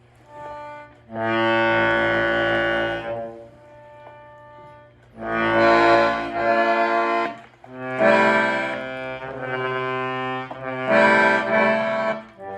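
An antique Hohner melodeon (button accordion) sounding a series of held chords, each lasting one to two seconds, with short breaks and quieter notes between. Its reeds and valves are worn and still await restoration.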